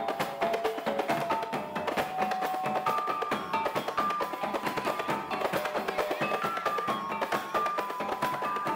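Maluku totobuang gong-chime ensemble playing: small kettle gongs in a rack struck with sticks in a fast, stepping melody over steady drumming.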